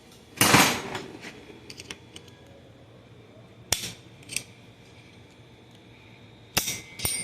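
A few sharp metallic clicks and knocks from gearbox parts and tools being handled, with a longer scraping rattle about half a second in.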